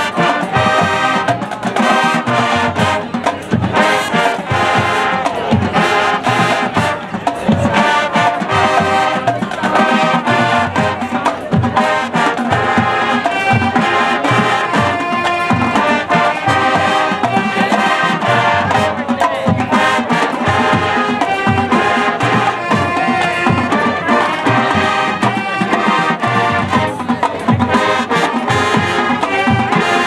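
High school marching band playing: brass melody and harmony carried over marching drums and front-ensemble percussion.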